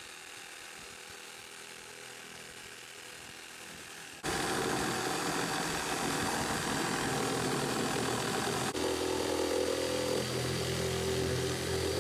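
A corded reciprocating saw cutting through a plastic barrel wall. It starts suddenly about four seconds in and runs loud and steady, with a brief break near nine seconds, after which it carries a steadier pitched buzz.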